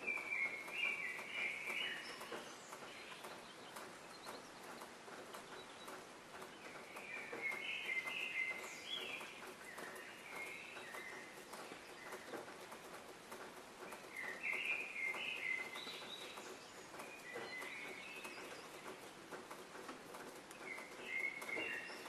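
Small songbirds chirping in short flurries, four bursts spaced several seconds apart, over a faint steady crackling patter.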